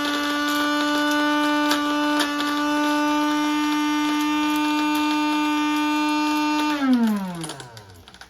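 Electric coffee grinder motor running steadily as it grinds espresso beans, then switched off about seven seconds in, its hum falling in pitch as it spins down.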